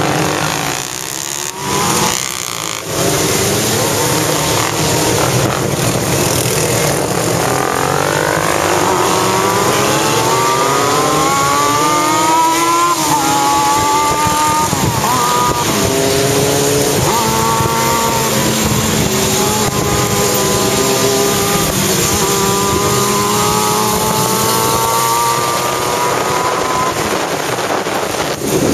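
Motorcycle engines accelerating; one engine's pitch climbs steadily, drops back at each gear change and climbs again, several times over. Underneath runs a steady rush of wind and road noise.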